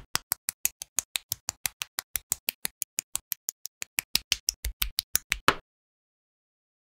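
Quick run of sharp clicks, about six a second, as small plastic and metal model-kit parts are snapped together; it cuts off suddenly about five and a half seconds in.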